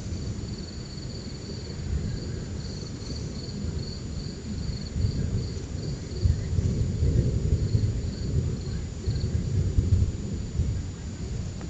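Thunder rumbling, swelling about halfway through and strongest toward the end. Insects chirp in rapid, even pulses over it, fading out near the end.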